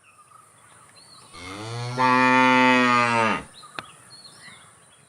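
A dairy cow mooing once: one long call lasting about two seconds that swells, then drops in pitch as it stops. Faint high chirps and a single click sound around it.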